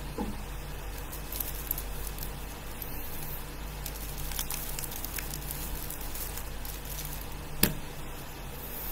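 Soft rustling and a few light clicks as hands rub a speedcube with a cloth, over a steady low hum. Near the end comes a single sharp knock as the cube is set down on the table.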